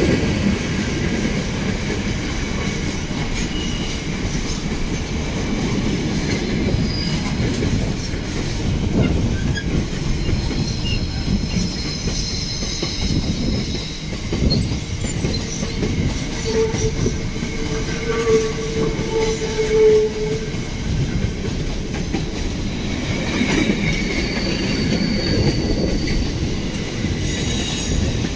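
Container flat wagons of a Class 66-hauled intermodal freight train rolling past: a continuous rumble and clatter of wheels on the rails. Thin wheel squeals come and go, with the longest steady squeal a little past the middle.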